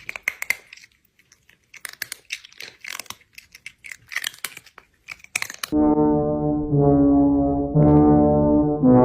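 Irregular crackly clicks and scratches for the first half or so. Then, about six seconds in, a low brass instrument much like a trombone starts playing loud held notes, moving to a new note about once a second.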